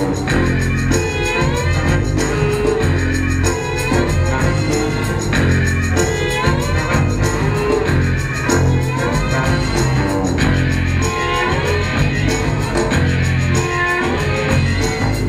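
Rock-style background music with guitar over a steady, heavy bass line.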